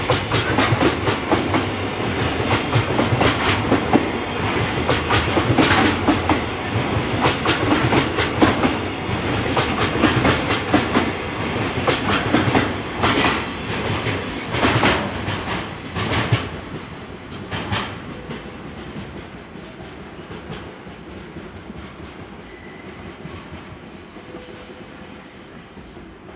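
Koki 50000 container flatcars of a freight train rolling past close by, wheels clattering and clicking over rail joints. The noise fades away over the last ten seconds or so as the end of the train recedes, with a few brief high wheel squeals.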